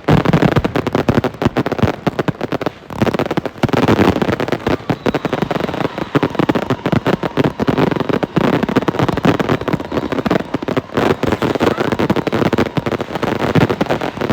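Firecrackers going off in a rapid, continuous run of sharp pops, with a short lull about three seconds in.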